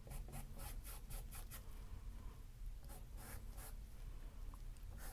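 Bristle paintbrush brushing paint onto a stretched canvas in short strokes, in quick runs of several strokes with a pause of about a second midway.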